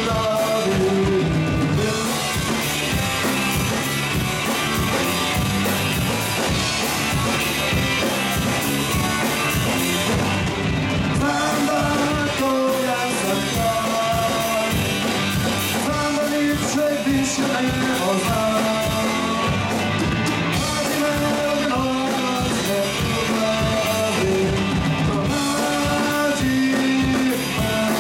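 Rock band playing live: drum kit, guitars and a singer, at a steady, loud level.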